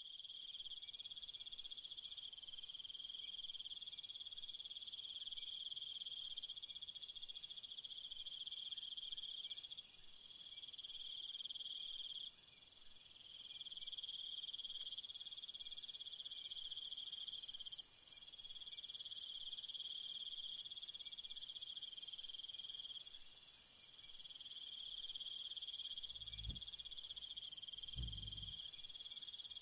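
Chorus of night insects, chiefly crickets, trilling steadily at several high pitches, the layers swelling and dropping back every few seconds. Two soft low thumps come near the end.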